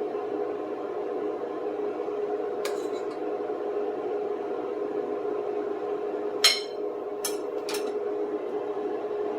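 Steady low electric hum of a kitchen appliance, with a few sharp clinks of a serving utensil against dishes, the loudest about six and a half seconds in.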